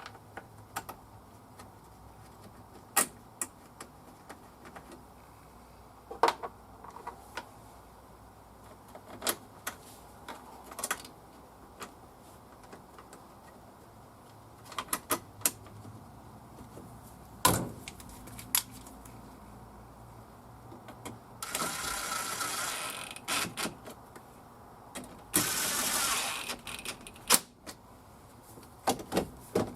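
Scattered sharp clicks and knocks of parts being handled and snapped together while a van's shifter assembly is fitted, then two rasping noises lasting a second or two each, about twenty-two and twenty-five seconds in.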